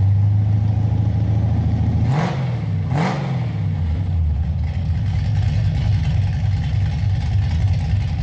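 Third-generation Pontiac Trans Am's small-block V8 with a flat-tappet cam idling, blipped twice in quick succession about two and three seconds in, each rev rising and dropping back to idle.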